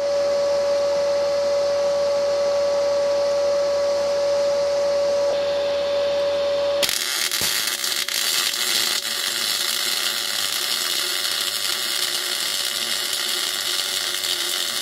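A steady hum, then about seven seconds in an aluminium MIG welding arc from a spool gun strikes on a 1.2 mm aluminium tee joint. The arc runs as an even, crackling hiss.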